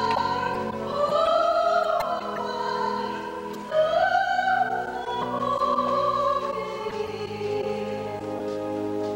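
Classical, operatic-style singing: long held notes that glide up and down, over a steady sustained accompaniment.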